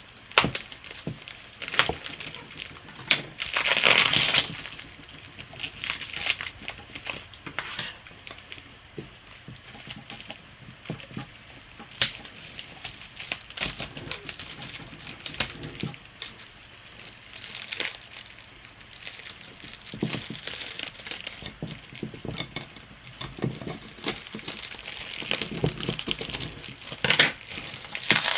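Bubble wrap and plastic packing crinkling and rustling as it is handled and pulled away, with scattered sharp clicks and knocks throughout and a louder burst of rustling about four seconds in.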